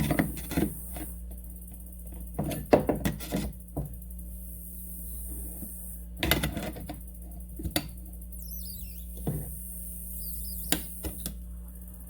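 Scattered clicks and knocks of hand tools and plastic parts being worked on a workbench, coming in small clusters, as a plastic fuel quick-disconnect fitting is handled. A faint, wavering high squeak comes a little past the middle.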